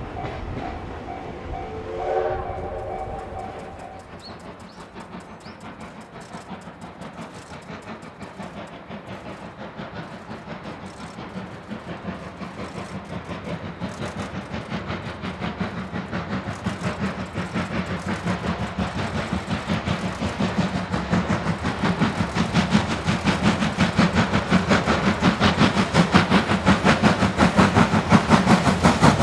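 C57 steam locomotive's chime whistle sounding and cutting off about two seconds in. Then the locomotive works toward the listener, its rapid beating growing steadily louder.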